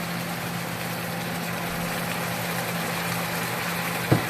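Pork, peppers and onions sizzling in a frying pan over high heat, just after a sauce has gone in, with a steady low hum underneath. A single sharp knock near the end.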